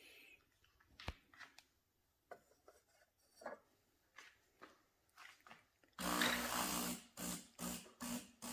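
DeLonghi Magnifica S espresso machine's water pump starting its rinse cycle about six seconds in: a loud pulsing buzz, roughly two to three pulses a second, after a few faint clicks. The pump running and pushing water through is the sign that clearing the blocked pump tubing has cured the 'ground too fine' error.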